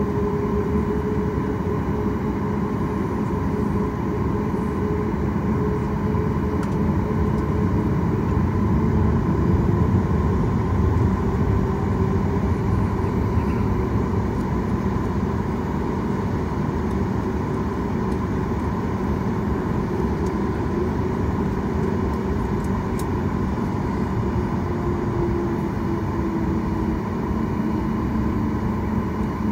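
Steady engine and cabin noise inside a Boeing 737 MAX on the ground, its CFM LEAP-1B engines running with a hum and a faint whine, the plane taxiing.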